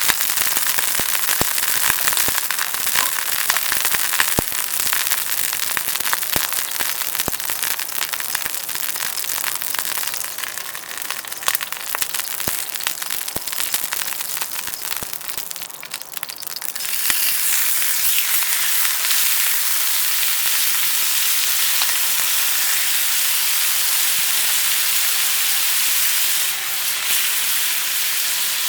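Cooking over a small wood fire in a compact grill: dense crackling and popping for about the first half, changing about 17 seconds in to a steadier sizzling hiss.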